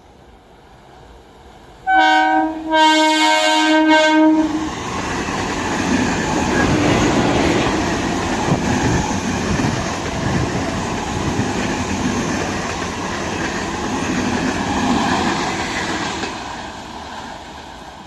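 Indian Railways train horn sounding in two blasts, the second longer, followed by a train passing with a steady rumble and wheel clatter that fades away near the end.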